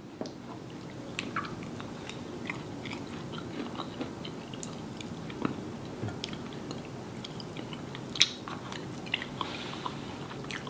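A person chewing and biting food close to the microphone, with many small wet clicks and crunches.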